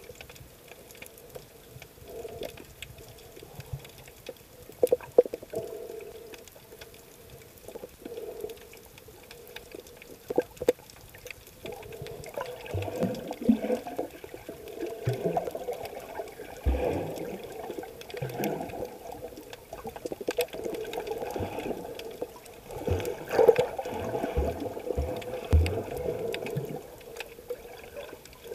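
Sea water heard underwater, muffled: sloshing and bubbling with scattered sharp clicks, growing busier and surging from about halfway through, with low thuds.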